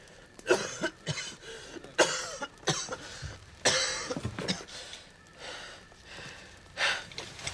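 A person coughing repeatedly in several short fits, with one more cough near the end.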